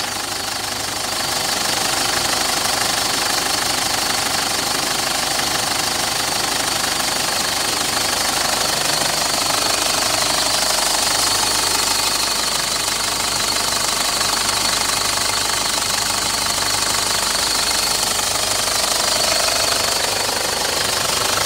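Ford Ranger 3.0-litre Duratorq TDCi four-cylinder turbo-diesel engine running steadily at idle, heard up close with the bonnet open.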